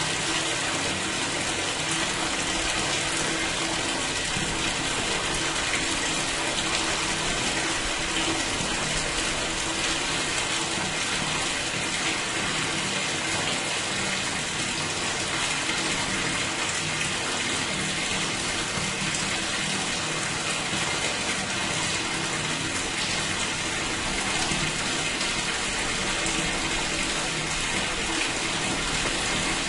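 Water pouring steadily into a sewer drain or gully, a continuous even rush and gush with no breaks.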